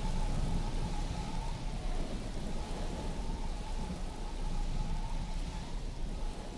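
Steady rain ambience with a constant low rumble underneath and a faint wavering tone, as the track fades out.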